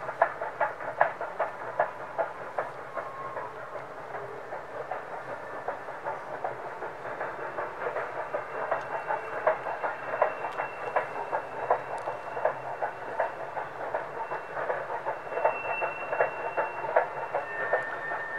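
Rapid, rhythmic exhaust chuffing of the 2-6-6-2 articulated (Mallet) steam locomotive #1309 working along the line, growing slightly louder as it comes on.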